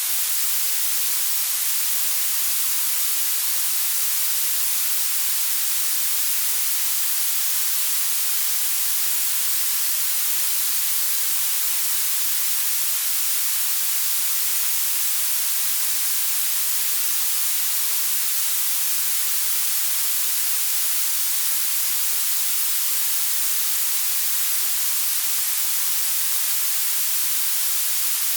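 Synthetic blue noise: a steady, even hiss whose energy rises toward the treble, with almost nothing in the bass.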